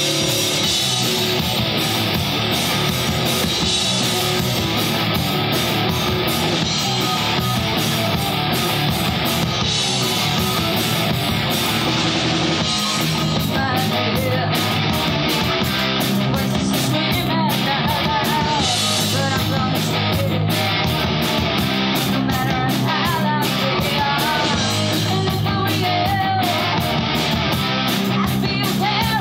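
Live rock band playing: electric guitars, bass guitar and drum kit. A woman's voice comes in singing over the band about halfway through.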